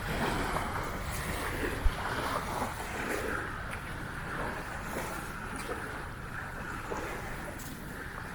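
Wind rumbling on the microphone over small lagoon waves lapping at the shore, a steady windy wash with irregular swishes. A brief low bump about two seconds in is the loudest moment.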